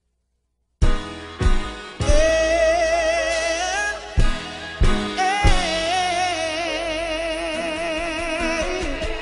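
A song with singing starts about a second in, with heavy drum hits and a sung melody held on long, wavering notes.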